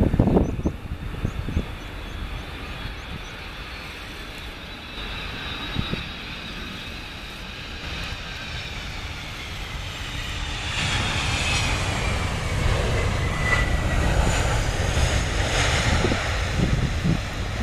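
Boeing 767-300ER jet engines on landing: a steady whine that slides down in pitch as the airliner passes, then, from about ten seconds in, a louder rising rush as the engines spool up for reverse thrust during the rollout. A few wind buffets hit the microphone near the start.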